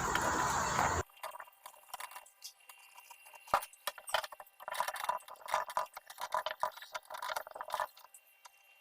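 A steady hiss that cuts off suddenly about a second in, then faint scattered clinks and taps, like jars and containers being handled and set down.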